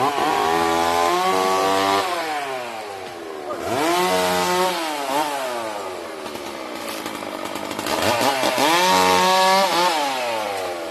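Two-stroke chainsaw engine revved up and back down three times. Each time it climbs to a high steady whine, holds it for a second or two, then falls back toward idle.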